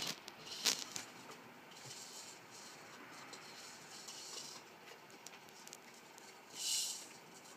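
Rough collie puppies' paws pattering and scrabbling across a paper pet-sheet floor, with light crinkly rustles. A sharp knock comes just under a second in and a louder rustle near the end.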